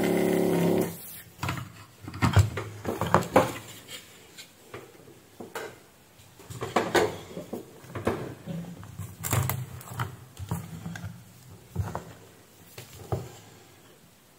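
A steady hum that stops about a second in, followed by scattered knocks and clicks of electrolytic capacitors and tools being handled on a workbench while a capacitor is desoldered from a power-supply board and set down.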